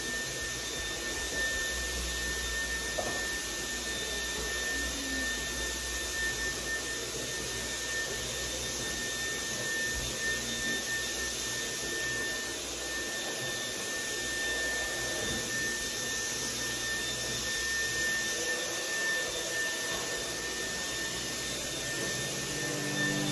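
A small fan motor running with a steady whir and a constant high-pitched whine.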